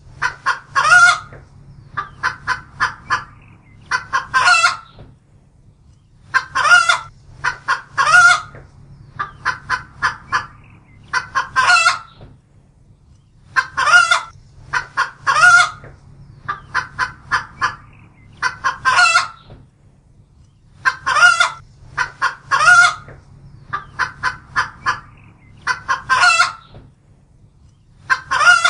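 Rooster clucking and calling over and over: runs of quick short clucks alternate with louder, slightly longer calls every couple of seconds. A faint steady low hum runs underneath.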